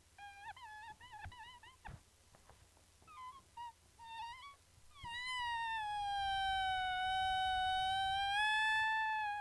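Air squealing out of a deflating balloon through its stretched neck. First come short wobbling squeaks, then from about five seconds in a long squeal that sags slightly in pitch and rises again before cutting off.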